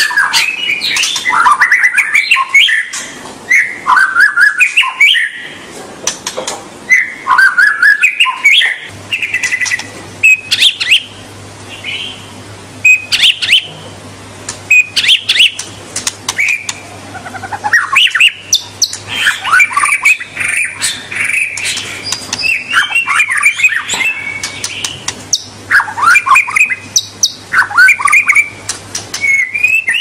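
White-rumped shama (murai batu) singing a long run of loud, varied whistled phrases, one after another with short pauses, the notes sliding up and down in pitch.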